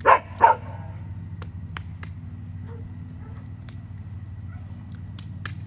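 A dog barks twice in quick succession, two short loud barks, then a steady low hum with scattered sharp clicks.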